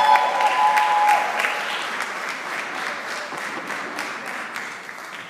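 Audience applauding, with a few held high notes over the clapping in the first second. The clapping thins out and dies away steadily.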